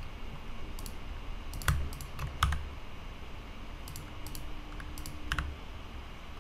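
Computer keyboard keys and a mouse button clicking, single sharp clicks at irregular moments with pauses between.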